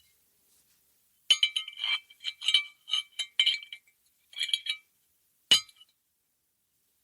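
Two glass bottles clinked together: a quick, irregular run of clinks, each ringing briefly, starting about a second in, then one sharp single clink near the end.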